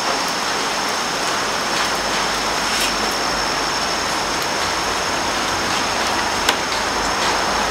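Steady rain falling, an even hiss with a few faint clicks near the middle and about two-thirds of the way in.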